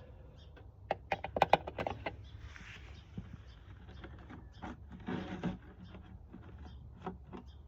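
Handling clatter: a quick run of sharp clicks and knocks about a second in, then scattered small taps, with a brief low mumble or grunt about five seconds in.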